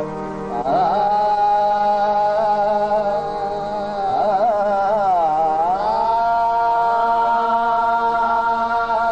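Qawwali singing without drums: a voice in long, ornamented held notes over steady harmonium tones. It swoops down and back up about four to five seconds in, then holds one long steady note.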